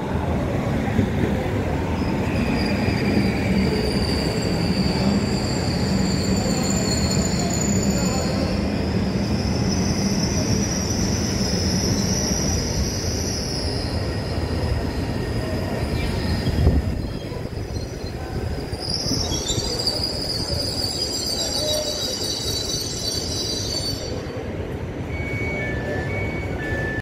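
Hitachi Rock (ETR 521) double-deck electric train rolling slowly into the station with a steady low rumble and brake squeal. A single high whine runs through the first half, there is one thump a little past the middle, and later several squealing tones sound together for a few seconds.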